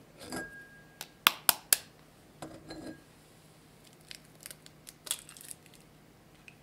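Eggs clinking against each other and against a ceramic bowl as they are picked out, four sharp clicks about a second in. Near the end an egg is tapped on the rim of a glass mixing bowl and cracked open, with small ticks and a short crackle of shell.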